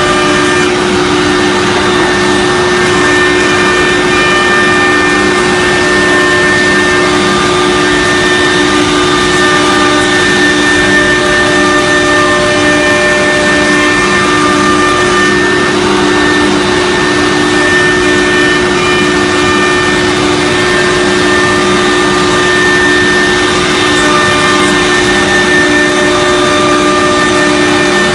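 CNC router with a 6 kW HSD spindle running steadily: a constant whine made of several fixed tones over a loud, even rushing noise.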